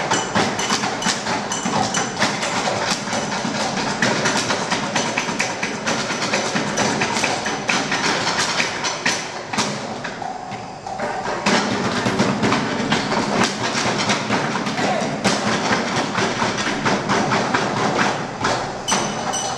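Group percussion beaten on wooden desks and found objects such as a glass bottle and plastic bowls: a dense, steady stream of knocks and taps. It thins briefly about halfway through, then picks up again.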